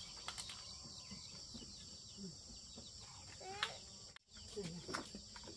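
Faint farmyard ambience: a steady high insect drone with a couple of short chicken clucks about three and a half and five seconds in. The sound drops out briefly just after four seconds.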